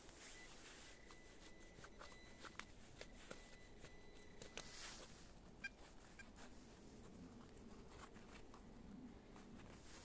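Near silence, with a few faint scattered clicks and a faint steady high tone for the first few seconds that stops about halfway through.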